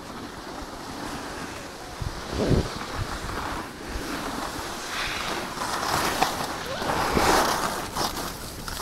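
Skis sliding and scraping over packed snow while wind rushes over the microphone, growing louder from about halfway as the skier picks up speed downhill. A brief low thump about two and a half seconds in.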